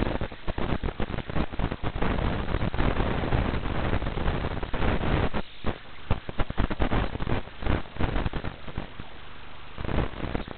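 Crackling, hissing radio static on the audio of an analog FPV video link from an RC plane in flight. It breaks up unevenly as the signal fades in and out, with a dip a little past five seconds and a quieter stretch near the end.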